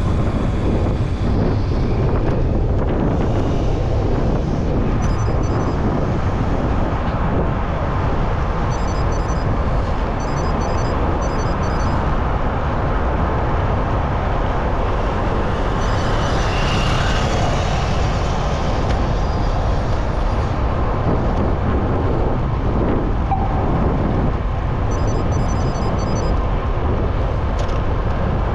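Steady city road traffic and wind rushing over the microphone, heard from a moving bicycle; the noise swells briefly about halfway through.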